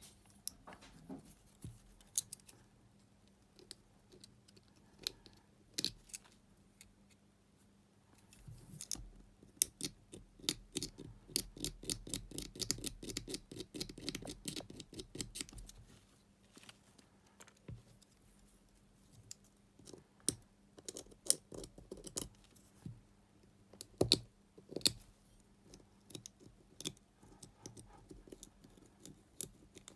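Hand-work on a small two-cell battery pack: scattered sharp clicks and taps of tools and plastic, with a stretch of fast scratching or snipping from about nine to sixteen seconds in.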